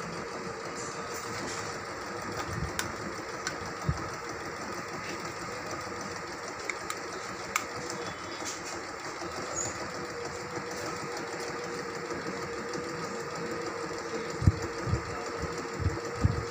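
Juki Liza 20Z household sewing machine running steadily, sewing a decorative stitch pattern. A few sharp knocks come near the end.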